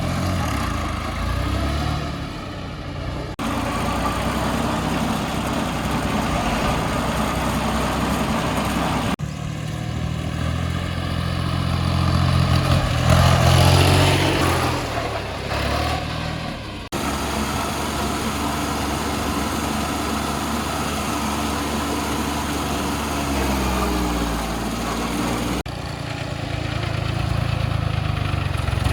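A motor vehicle engine running, rising in pitch and getting louder about halfway through as it revs. The sound changes abruptly several times.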